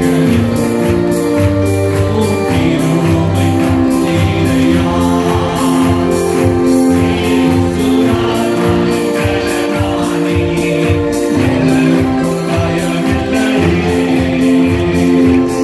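Live worship song: a man singing into a microphone over sustained electronic keyboard chords, with a steady percussion beat.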